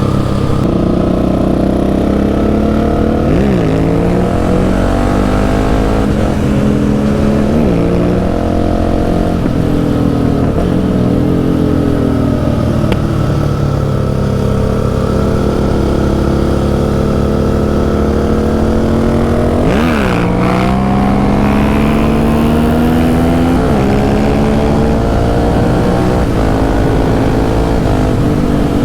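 Husqvarna 701's single-cylinder engine under load, its pitch climbing as the bike accelerates and dropping sharply at several gear changes, with a steady rush of road and wind noise.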